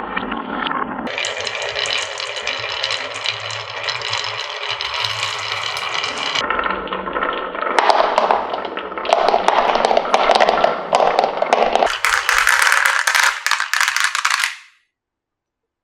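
Many marbles rolling and clattering down a HABA marble run slope: a loud, dense rattle that shifts character abruptly several times, then cuts off near the end.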